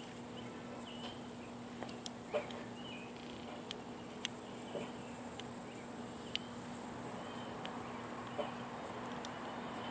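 Scattered small, sharp clicks and taps from folding multi-tools being handled, about eight over several seconds. Under them runs a faint steady background with a thin high whine and a low hum.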